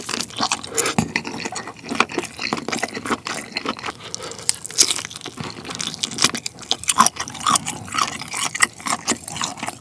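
Close-miked eating sounds: wet chewing and lip-smacking of lobster meat and ramen noodles, with many quick, irregular mouth clicks.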